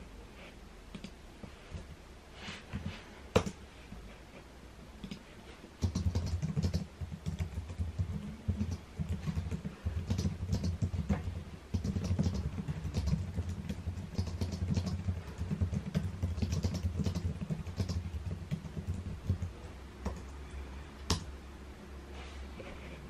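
Typing on a computer keyboard: a fast run of key clicks with a dull thud through the desk from about six seconds in until near the end, with a few separate clicks before it and one sharp click after.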